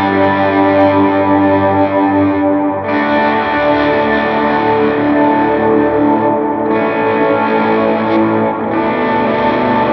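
Humbucker-equipped Les Paul electric guitar played with a slide through a Line 6 HX Stomp preset with heavy compression and overdrive. It holds sustained, distorted notes that move to a new chord or position about every two to three seconds.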